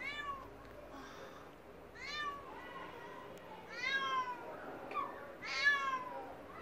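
Cat meowing: four short meows about two seconds apart, each falling in pitch at its end.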